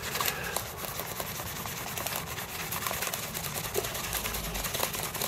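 Paper towel rubbed quickly back and forth over the plastic buttons of an Acorn Archimedes mouse: a steady, fast scrubbing that works plastic polish in to lift dirty marks.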